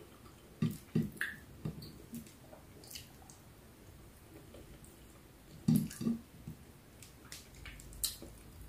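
Quiet, wet eating sounds of someone eating yellow rice and ripe mango by hand: chewing and lip smacks in short clusters, about a second in, near six seconds and again near eight seconds.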